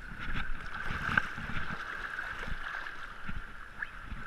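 Shallow seawater sloshing and gurgling around a GoPro held at the water's surface, with small waves knocking against the camera now and then.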